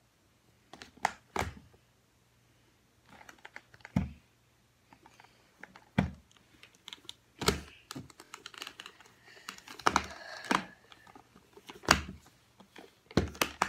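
Irregular clicks, taps and soft thumps of a plastic baby doll being handled and dressed, with the rustle of its fabric pajamas being pulled on, heaviest about ten seconds in.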